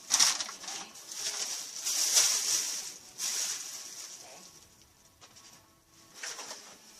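Rustling and scraping of packaging being handled, in irregular hissy bursts that fade to faint after about four seconds.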